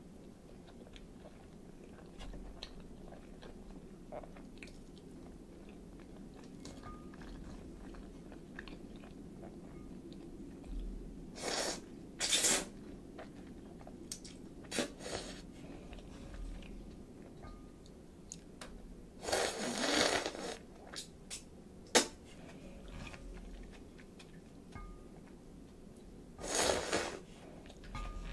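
Close-miked eating of chilled ramen: soft chewing, broken by about five loud slurps of noodles, the longest lasting about a second. A single sharp click comes a little past the middle.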